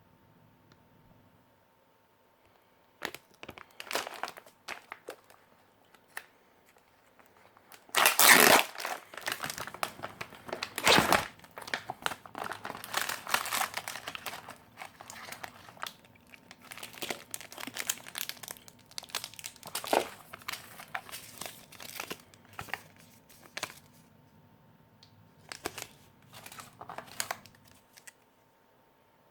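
Packaging of a military field ration crinkling and rustling as it is handled and pulled open, in irregular bursts. The loudest stretch comes about eight to eleven seconds in.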